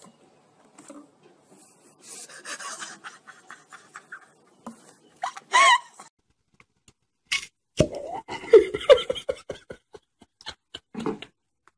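Scattered short sounds: soft clicks and handling noise, a brief wavering squeal about halfway through, then a person laughing in short broken bursts about two thirds of the way in.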